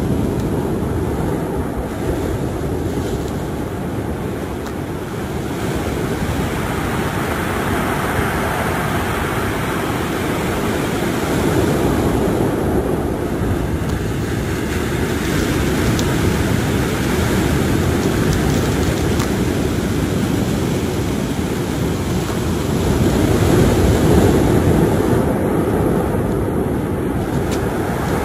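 Ocean surf breaking on a stony beach: a steady rush of noise that swells twice, about midway and again near the end as bigger waves come in.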